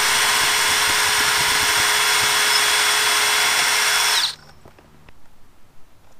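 DeWalt brushless cordless drill/driver running at a steady speed as it backs out the screws holding an old floodlight fixture to the wall box. It stops abruptly about four seconds in, followed by a few faint clicks.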